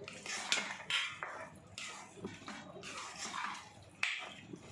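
Metal spoon stirring and scraping in a pot of snail and brinjal curry, a few sharp scrapes and clinks among softer stirring.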